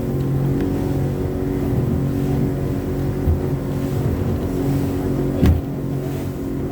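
Boat's motor running steadily at cruising speed, over water and wind noise, with a single thump about five and a half seconds in.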